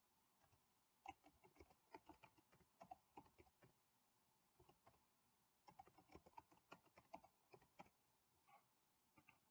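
Faint typing on a computer keyboard: quick runs of key clicks, in two main bursts about a second apart, with a few single keystrokes near the end.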